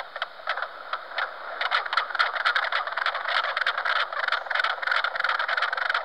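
Mink frogs calling: a run of quick, knocking clucks like hammering on wood far off, sparse at first and then a dense, rapid patter from about a second and a half in.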